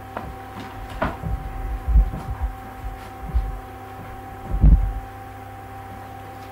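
Several soft, low thumps and knocks at irregular intervals over a steady electrical hum, with the thumps strongest a little under five seconds in.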